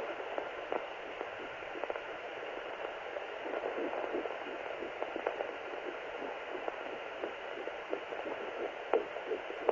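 Handheld fetal doppler's speaker giving a steady static-like hiss with faint, quick pulses through it, which she takes for her 10-week baby's heartbeat.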